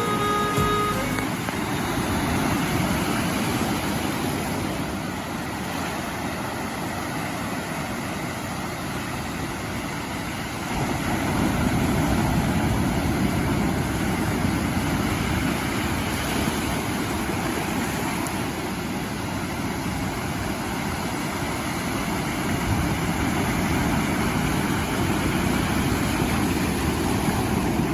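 Ocean surf: a steady rush of breaking waves, swelling louder about ten seconds in.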